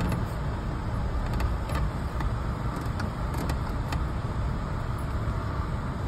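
Car running and rolling along a muddy dirt road, heard from inside the cabin as a steady low rumble, with a few light clicks.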